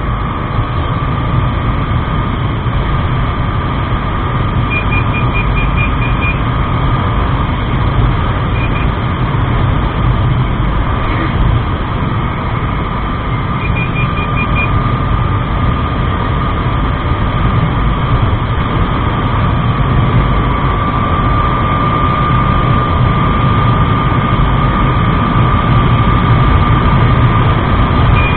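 Husqvarna Svartpilen 250 single-cylinder motorcycle running at road speed, heard from the rider's camera with heavy wind rumble on the microphone and a steady hum underneath. Short runs of quick high beeps come through about five, nine and fourteen seconds in.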